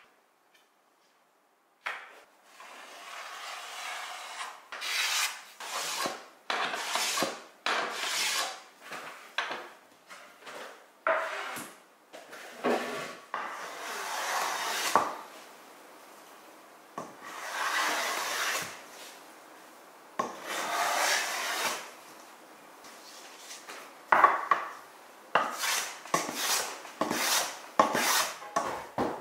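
Hand plane cutting shavings from a hardwood strip in repeated strokes, each a short rasping swish. The strokes start about two seconds in and come irregularly, some longer than others.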